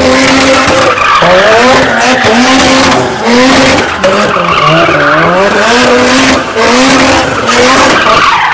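Mazda RX-7's rotary engine revving up and down over a continuous screech of spinning tyres as the car does donuts.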